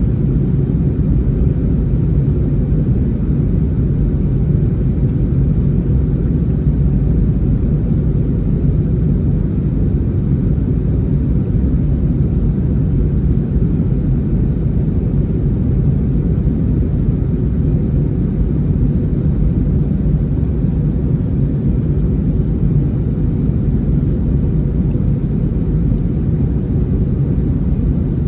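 Steady low rumble of engines and airflow inside the cabin of an Airbus A321neo on the ground before takeoff, with an even hum and no changes.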